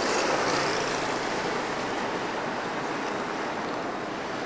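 Steady engine and road noise inside a moving tour bus.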